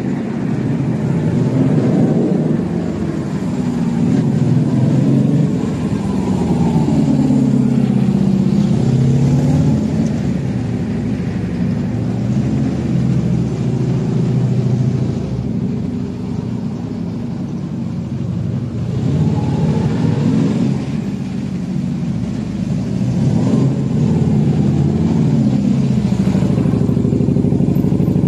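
Yamaha Drag Star 250 V-twin motorcycle with an aftermarket muffler being ridden, its engine note rising and falling several times as it accelerates and slows, inside an indoor parking garage.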